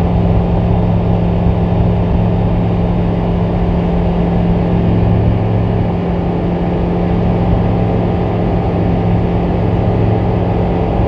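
Rotax 912 Xtra flat-four aircraft engine and propeller running steadily at high takeoff power, a loud even drone through the takeoff roll and climb-out.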